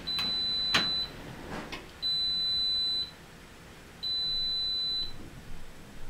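Front-loading washing machine's electronic beeper sounding three steady high-pitched beeps, each about a second long and two seconds apart. A sharp click comes during the first beep.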